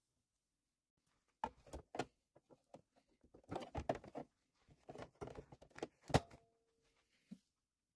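A plastic embroidery hoop holding faux leather is handled and fitted onto an embroidery machine's arm. Scattered knocks, taps and rustles start about a second and a half in, with one sharper click about six seconds in.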